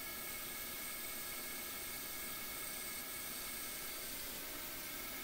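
Small CNC lathe running while turning an aluminium velocity stack: a steady hiss with a few steady high whines.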